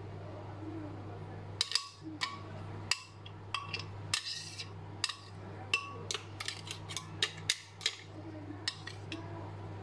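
Metal spoon scraping and clinking against the inside of a Bosch blender's glass jug as thick chili paste is scraped out: a string of short, sharp, irregular clicks that begins a little over a second in, over a steady low hum.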